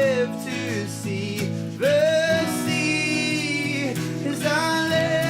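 Acoustic band performance: a voice singing long held notes that slide between pitches, over guitar accompaniment.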